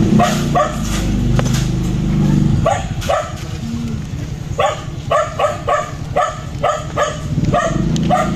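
A dog barking over and over in short, high barks, about two or three a second, with a brief pause near the middle. A low steady hum runs under the first few seconds.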